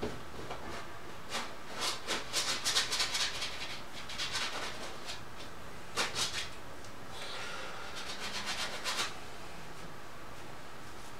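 Bristle brush scrubbing oil paint onto a canvas in several runs of short, rapid strokes, with pauses between the runs.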